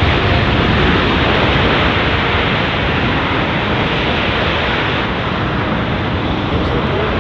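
A C-17 Globemaster III's four Pratt & Whitney F117 turbofan engines in reverse thrust after landing, giving a steady loud rush of jet noise that eases slightly about five seconds in.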